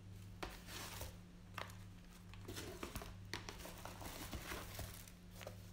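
Soft rustling and scattered light clicks close to the microphone, typical of a phone or clothing being handled, over a faint steady low electrical hum.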